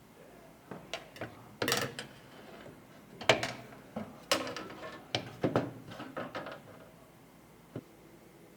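Hardware being handled and fitted during a PC build: a dozen or so sharp clicks, taps and knocks of parts and tools, the loudest about three seconds in, thinning out after about seven seconds.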